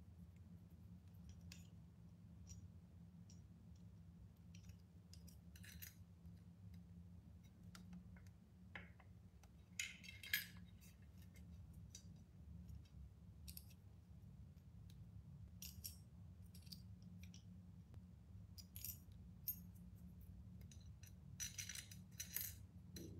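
Faint, scattered clicks and clinks of small hardware against a tempered glass lid as its knob is fitted, a little louder about ten seconds in and again near the end, over a low steady room hum.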